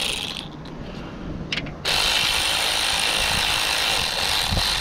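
Small cordless power tool (a "gun") running steadily for about four seconds as it drives a bolt. It starts about two seconds in.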